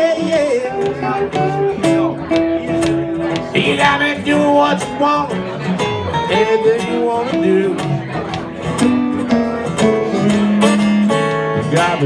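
Live acoustic guitar band playing an instrumental break: strummed and picked acoustic guitars under a lead line of held notes that bend in pitch.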